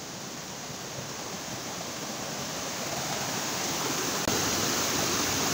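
Mountain stream rushing over rocks, its flow swollen by monsoon rain. The rush of water grows steadily louder, with a small jump about four seconds in.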